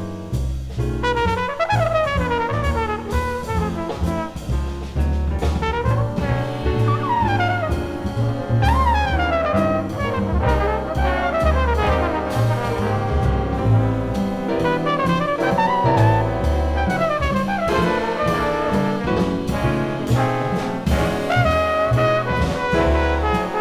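Big band jazz: brass and saxophones playing over bass, piano, guitar and drums, with the brass to the fore and many notes bending down in pitch.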